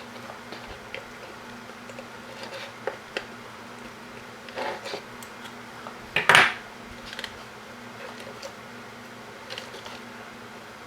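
Small clicks, scrapes and rustles of hands working a stripped stranded wire and small metal tools on a workbench, with a louder clatter about six seconds in, over a steady low hum.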